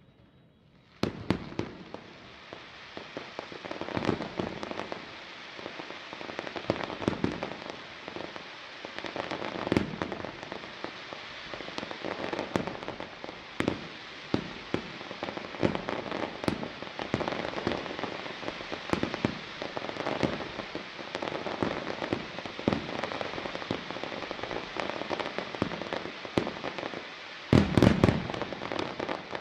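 Aerial fireworks display. Shells burst with many sharp bangs over a dense, continuous crackling of glittering stars, with a cluster of louder bangs near the end. It starts about a second in, after near quiet.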